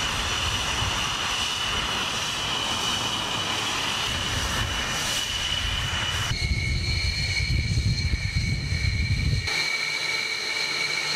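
Military jet engines running on the ground: a steady turbine whine over a heavy rumble. The whine's pitch jumps abruptly about six seconds in, and the rumble drops away about nine and a half seconds in, leaving only the whine.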